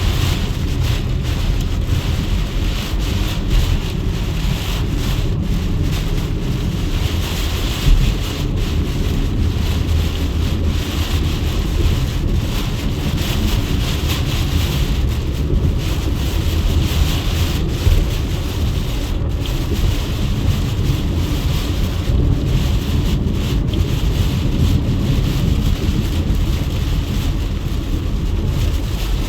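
Hurricane-force wind buffeting the microphone: a loud, steady rush of noise that is heaviest in the low end, with brief stronger gusts about eight and eighteen seconds in.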